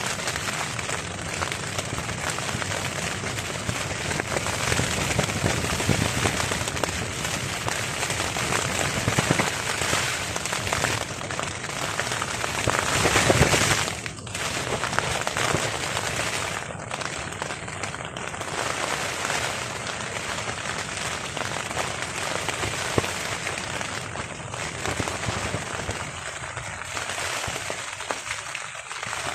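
Heavy rain pattering and crackling on a tarp overhead, in a steady dense hiss that surges louder about two-thirds of the way through, then eases off suddenly.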